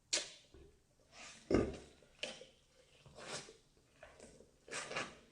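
Close-miked chewing of buttered sweet corn: a string of short, irregular wet mouth sounds about half a second to a second apart.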